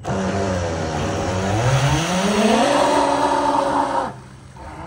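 Electric motors of a 3D-printed RC jet boat spinning up its water-jet impellers: a whine that climbs in pitch after about a second and a half and then holds, over the rushing hiss of the jet spray. It stops suddenly about four seconds in.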